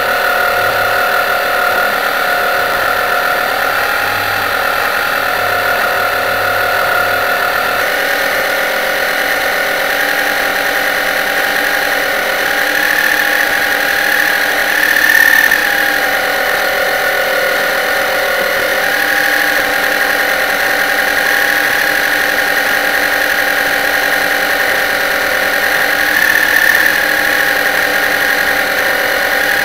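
Radio-controlled model boat's motor running, heard from a camera on board: a steady high whine whose pitch wavers slightly a few times, briefly louder about halfway through and again near the end.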